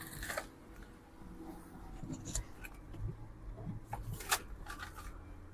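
Rustling and handling noise as someone climbs into a car's driver seat, with scattered sharp clicks and knocks, the sharpest about four seconds in.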